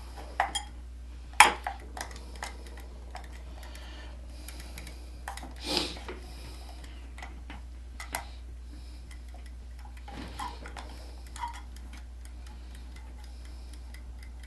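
Irregular clicks, taps and light knocks of small hard parts being handled and pushed together: a plastic kitchen timer and a tripod quick-release plate being lined up. A faint steady low hum lies underneath.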